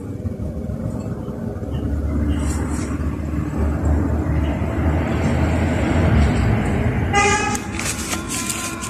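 A deep rumble swells over several seconds and then eases. About seven seconds in, a loud horn-like blast with a steady pitch comes in and holds to the end.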